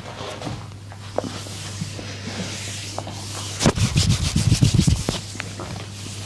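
Hands rubbing and sliding over skin during a massage, with a run of quick thumps, about six a second, from a little after halfway for over a second. A steady low hum lies underneath.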